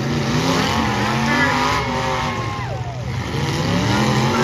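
Demolition derby cars' engines revving together, their pitches rising and falling over a steady low drone.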